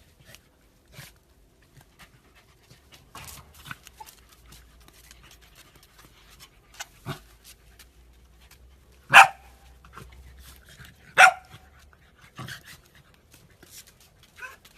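A dog barking twice, about two seconds apart, with softer short sounds around the barks.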